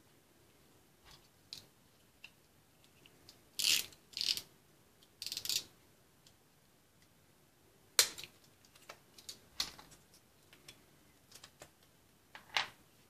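Handling noises of a cast part being worked out of its mold and trimmed with a snap-off utility knife: scattered sharp clicks and short scraping rustles, louder around four to five seconds in, with a sharp click about eight seconds in and another near the end.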